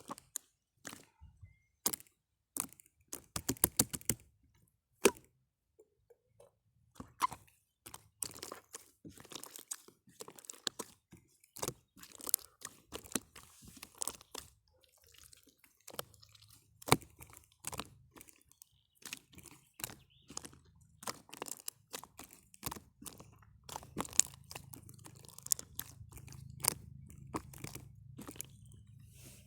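Irregular sharp clicks and crunches close to the microphone, some in quick clusters, with a faint low hum coming in about halfway through.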